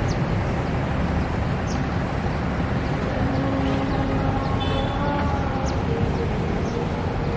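Steady road traffic and engine noise: an even low rumble with no single event standing out.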